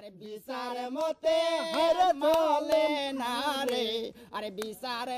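A single voice singing long, wavering held notes, with no clear words.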